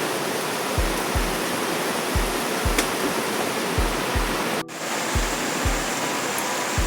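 Background music with a steady kick-drum beat over a constant rushing noise like falling water, briefly cutting out about two-thirds of the way through.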